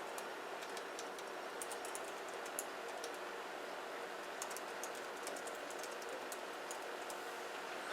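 Light, irregular clicking, like tapping on keys, over a steady background hiss.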